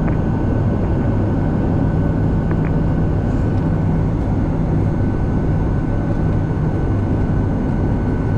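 Boeing 757-200 jet engines running steadily at taxi power: an even drone with a low hum and a thin steady whine, no change in thrust.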